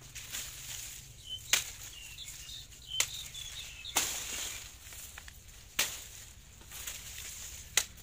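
Machete chopping through sugarcane stalks: about five sharp strikes at uneven intervals, with dry cane leaves rustling between them.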